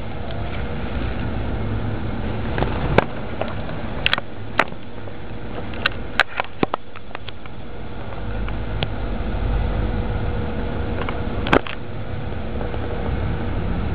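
Low rumbling noise on the camera microphone from handling and air movement, broken by sharp clicks and scrapes as broad leaves brush against the camera. A faint steady hum joins in around the middle.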